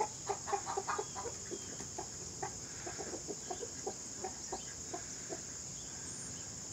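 Domestic hens clucking in short, repeated notes, the excited group chatter around a hen laying an egg. The clucks are busy at first, thin out and stop about five seconds in. A steady, high-pitched insect chorus runs underneath.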